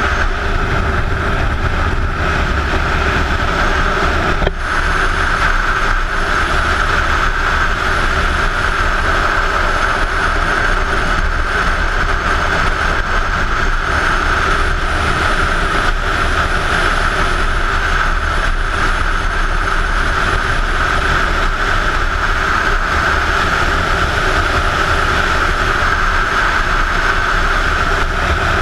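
Steady wind rush on a helmet-mounted camera from a Kawasaki sport bike cruising at road speed, with the engine's drone running underneath.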